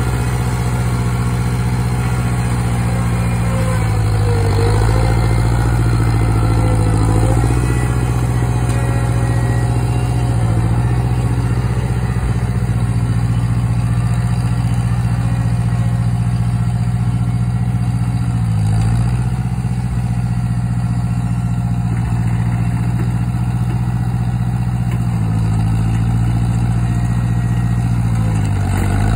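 International 544 tractor's engine running steadily under load while it drives a rear-mounted rotary tiller through the garden soil. The engine note sags briefly a few times as the load changes.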